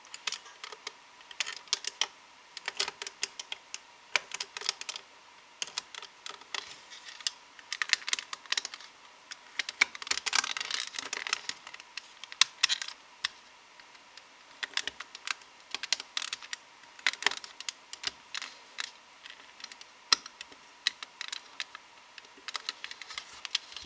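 Light, irregular clicking and tapping of a metal loom hook and stretched rubber bands against the plastic pegs of a band loom as the bands are hooked and pulled over, with a denser scratchy patch about ten seconds in.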